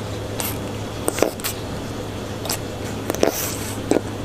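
Pufferfish crunching snail shells: a series of short, sharp cracks and clicks at irregular intervals, about eight in four seconds.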